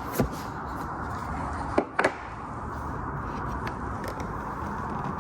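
Cardboard and plastic packaging of a dash cam being handled and opened. It gives a few sharp clicks and taps: one just after the start, and two close together about two seconds in, over a steady background hiss.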